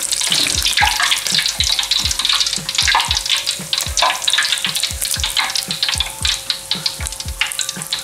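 Hot oil in a wok sizzling and crackling around freshly fried anchovy-and-rice-flour crackers (peyek teri) as they are lifted out and drained on a strainer. Soft low thuds repeat about two to three times a second underneath.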